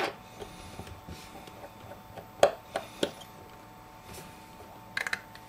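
A few small clicks and taps of a precision screwdriver working the tiny Phillips screws on an iPhone 5S's metal connector shield, the loudest about two and a half seconds in, with a quick cluster of clicks near the end.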